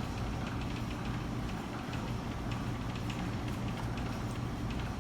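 Steady low hum with faint, scattered light ticks and taps, like small parts being handled.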